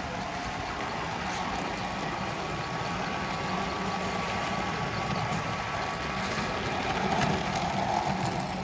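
Model trains running on a garden railway track: a steady rushing noise with a few light clicks, swelling slightly near the end.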